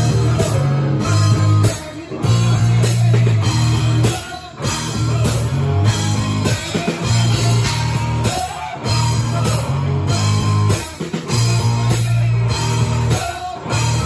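Live rock band playing an instrumental passage with no vocals: a drum kit with regular cymbal and drum hits over low bass notes and electric guitar, and the bass drops out briefly about every two seconds.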